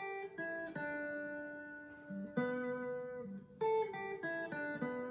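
Squier Classic Vibe Stratocaster electric guitar picked one note at a time in a pentatonic-scale phrase, each note left to ring. There are three notes at the start, a held note a couple of seconds in, then a quicker run of notes in the second half. These are the extra notes added beyond the edge of pentatonic position one, the "top hat" shape.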